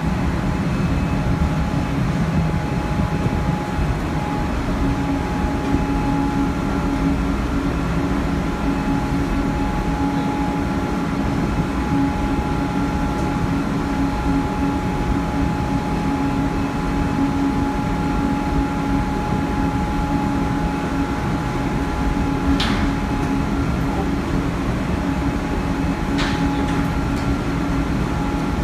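Steady drone of a ship's machinery with several fixed humming tones under it. Two short sharp clicks come near the end.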